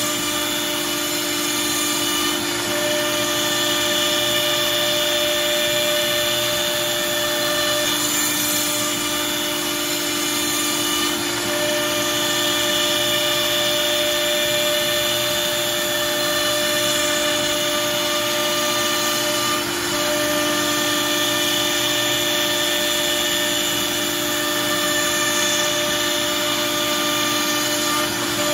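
CNC router spindle running steadily as its bit mills a cam clamp out of 1/2-inch MDF: a constant whine over the cutting noise, with a slight change in tone about every eight seconds.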